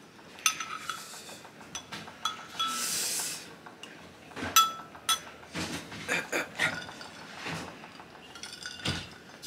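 Drinking glasses and dishes clinking several times, with a short pour of milk about three seconds in.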